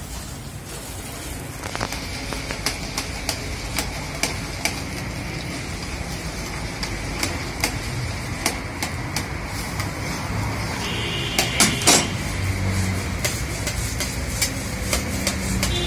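Metal spatula and tongs knocking and scraping against a steel karahi as chicken karahi is stirred, in irregular clinks over a steady hiss of cooking. About eleven seconds in comes a louder cluster of clangs that ring briefly.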